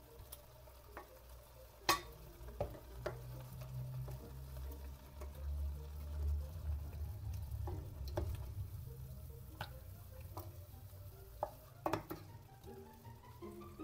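Pieces of veal shank being turned and stirred by hand in tomato sauce in a stainless steel pot, the sauce squelching and faintly sizzling. A few sharp clicks against the pot.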